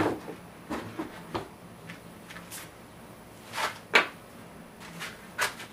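About half a dozen separate sharp knocks and clicks from hands handling parts and plastic bodywork on an ATV, the loudest about four seconds in.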